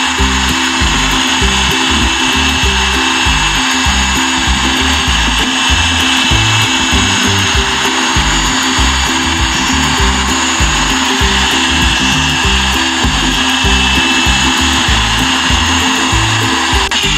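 Corded electric drill running steadily with a high whine, turning a homemade paddle bent from 10 mm steel rebar to mix two paint colours in a plastic bucket. Background music with a steady beat plays underneath.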